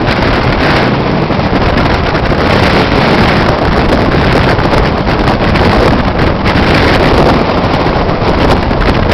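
A vehicle on the move with wind buffeting the microphone: a loud, steady, noisy rumble.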